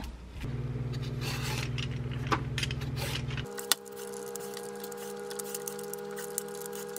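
A julienne peeler scraping strips of rind off a Korean melon (chamoe), with many light crisp ticks, starting about halfway in. Before that, a steady low hum with a few light knocks of handling on the counter.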